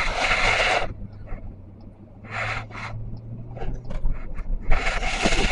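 A hand rubbing and fumbling right against a camera's microphone, in bursts: one long one at the start, another around the middle and one near the end. Under it runs the steady low hum of a moving car's cabin.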